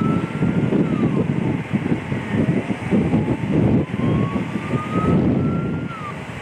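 Siren on an approaching MAN fire tanker, sounding as a slow rising wail that drops off quickly, heard twice, over a loud, gusty low rumble.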